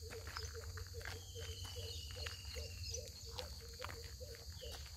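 Outdoor animal sounds: a short low note repeats about two or three times a second over a steady high-pitched insect buzz, with a faint falling whistle about a second in.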